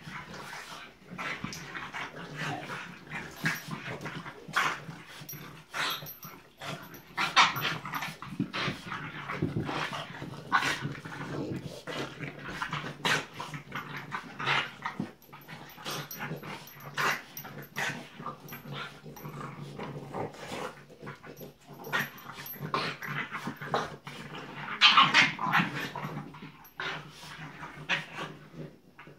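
Two French Bulldog puppies play-fighting, making short dog vocal sounds in irregular bursts, with a louder burst near the end.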